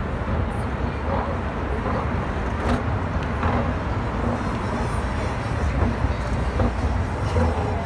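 City street ambience: a steady rumble of passing traffic, with faint voices of passers-by over it.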